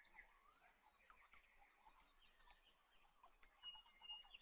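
Near silence with faint bird chirps and short trills in the background.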